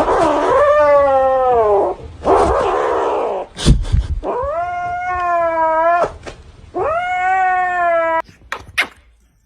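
A cat yowling: three long, drawn-out wails that rise and then sag in pitch, with a rough hissing stretch between the first two. A few sharp knocks come near the end.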